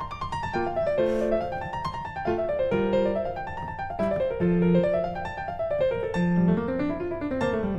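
Background piano music: quick rising and falling runs of notes over a low accompaniment.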